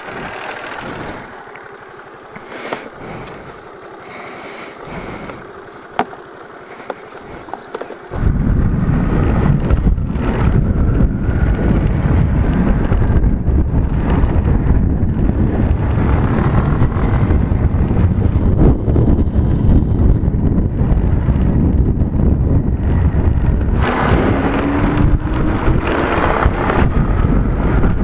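Loud wind buffeting on the microphone while riding a scooter, starting suddenly about eight seconds in and holding steady, with a brief rising whine near the end. Before that, a few sharp clicks and knocks as a fallen plastic phone holder is handled on the road.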